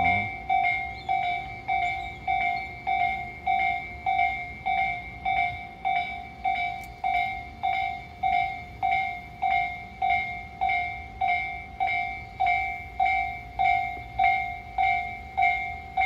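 Japanese railway level-crossing warning bell ringing steadily, an electronic two-tone ding repeating about twice a second. It is the crossing alarm that sounds while the crossing is closed for an approaching train.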